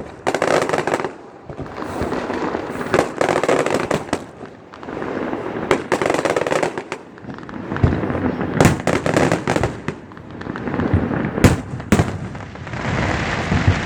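Fireworks display: aerial shells bursting with sharp bangs at irregular intervals, and stretches of dense crackling between them. The loudest bangs come as a pair near the end.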